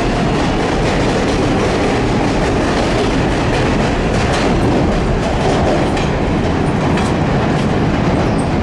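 R188 subway train running along the track: a steady loud rumble with faint clicks of the wheels passing over rail joints.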